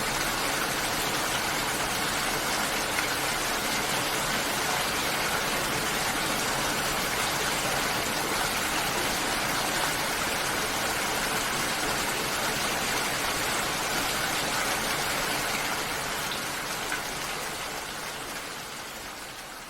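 Steady rain falling, an even hiss of drops, fading out over the last few seconds.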